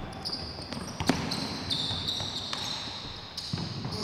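Basketball game play on an indoor court: a basketball bouncing with sharp thuds, one strongest about a second in, and high-pitched sneaker squeaks on the floor that shift in pitch through most of the stretch.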